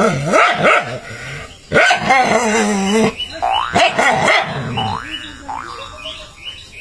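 A dog barking and growling at its own reflection in a mirror, a string of loud aggressive calls that dies down near the end.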